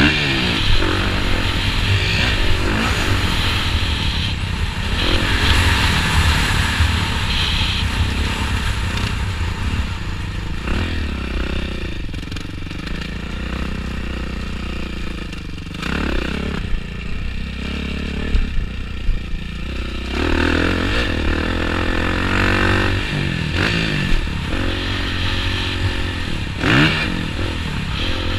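Dirt bike engine heard from a helmet-mounted camera while racing a motocross track, its revs rising and falling repeatedly as the throttle opens and closes, with a few sharp rev spikes in the second half.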